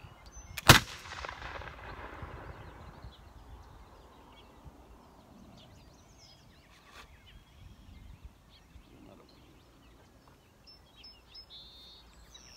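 British dragoon flintlock pistol firing a black-powder shot less than a second in: one loud, sharp report that echoes and dies away over a second or so.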